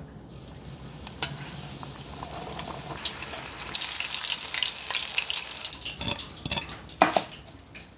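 Breaded quail Scotch eggs deep-frying in hot oil in a steel pot: a steady sizzle with small crackles that grows louder. About six seconds in it gives way to a knife crunching through the fried breadcrumb crust in a few loud strokes.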